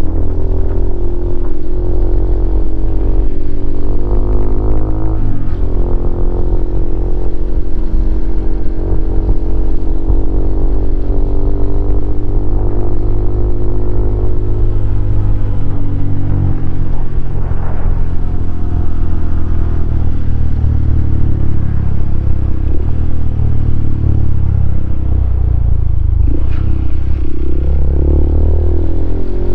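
Honda CRF150L's single-cylinder four-stroke engine running through a Norifumi Noctus T5 aftermarket exhaust while being ridden, its pitch climbing and falling back several times as the rider revs and eases off.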